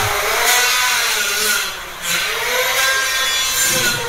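A cordless drill-driver drives screws through a plastic switchboard plate into the wall, in two runs with a short break about two seconds in. The motor's pitch rises and falls as it runs.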